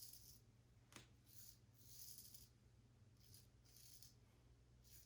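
Wade & Butcher 8/8 straight razor scraping through lathered stubble in short with-the-grain strokes: a series of faint, dry rasps about once a second, with a light click about a second in.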